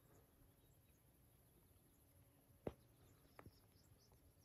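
Near silence with faint high bird chirps, broken by a sharp click about two-thirds of the way through and a smaller click shortly after.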